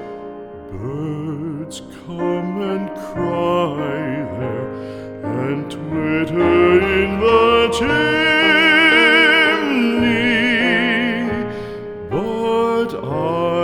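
Background music: a slow, tender song's instrumental passage, with long held notes that waver in vibrato, one held for about three seconds in the middle.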